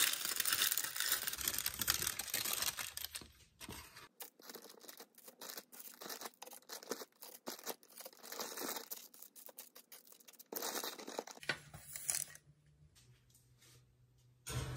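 Baking paper pulled from its box and torn off with a loud, crinkly rip lasting a few seconds, then a run of light taps and paper rustles as breaded chicken nuggets are set one by one on the paper-lined metal baking tray.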